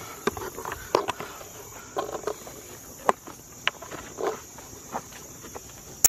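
Footsteps walking on a dirt trail, about one step a second, over a steady high-pitched chorus of insects.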